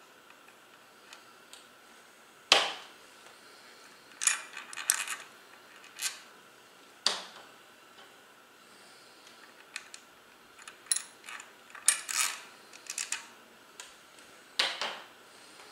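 Small steel parts from a Shimano coaster brake hub being worked off the axle and set down on a table: about a dozen sharp metallic clinks and clacks at irregular intervals, the loudest about two and a half seconds in.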